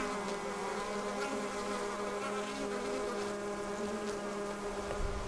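Honeybees humming on an open hive frame: a steady, pitched buzz from many bees at once.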